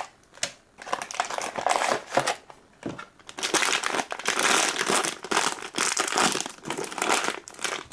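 Crinkling of a blind-box figure's foil wrapper being handled and opened, sparse crackles at first, then dense and continuous from about three seconds in.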